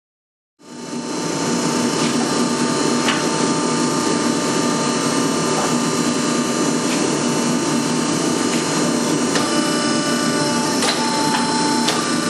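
Hydraulic forging press running steadily, its pump hum starting about half a second in, while it squares a hot stainless steel bar in a swage. A few faint clicks sound over the hum.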